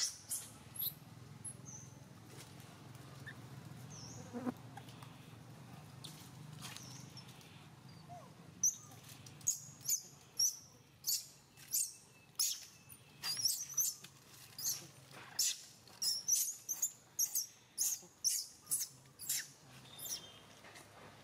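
Newborn long-tailed macaque squeaking. A few scattered high chirps come first, then from about eight seconds in a quick run of short, very high-pitched squeaks, roughly two a second.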